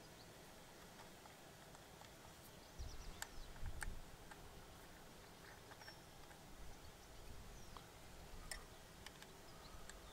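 Mostly quiet, with a few faint metallic clicks from an Allen key turning a small bolt on a motorcycle engine casing. A brief low rumble comes about three seconds in.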